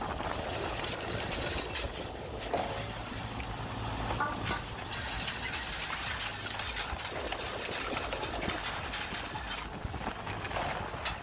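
Homemade firewood processor running: a steady engine hum with scattered knocks and clatter.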